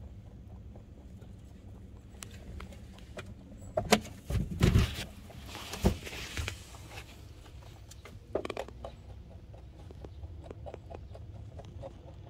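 Rabbits moving about in a hay-strewn hutch close to the microphone: scattered small clicks and scuffs, with a few loud bumps and a rustle between about four and six and a half seconds in, and another bump at about eight and a half seconds.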